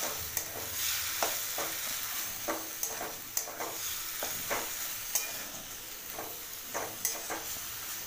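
Wooden spatula stirring chopped banana flower and masala in a metal kadai, with irregular scraping strokes against the pan over a steady frying sizzle.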